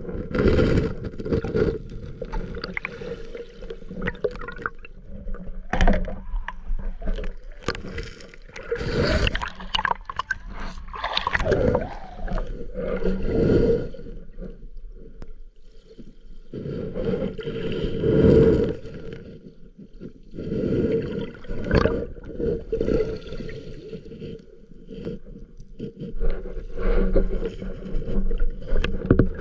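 Shallow lake water surging and gurgling around a camera held underwater, swelling and falling in uneven surges every few seconds, with occasional sharp knocks.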